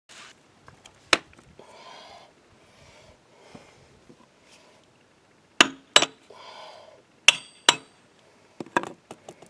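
Hand tools clinking and knocking on metal as the bolts are taken out of the PTO shaft retainer on a tractor rear housing. Sharp clanks come singly and in pairs, with two short rasping stretches in between.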